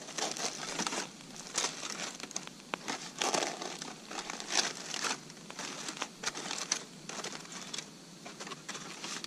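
Aluminium foil crinkling and crackling in irregular handfuls as a foil-wrapped campfire dinner packet is pulled open by hand.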